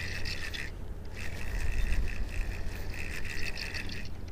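Baitcasting reel being cranked to bring in a hooked fish: its gears give a high, finely ticking whir in spells, with short pauses where the cranking stops, about a second in and again near the end. A steady low rumble runs underneath.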